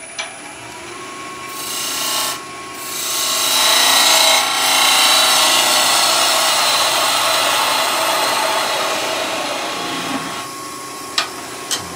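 A power tool motor whining steadily while wood is sanded, with a loud rasp of abrasion across the middle that eases off near the end: the saw cuts being cleaned off a small wooden block.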